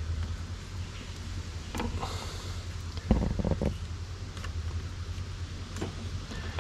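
Close handling sounds of electrical tape being wrapped around a switch's wiring: faint rustles and clicks, with a few dull knocks about three seconds in, over a steady low hum.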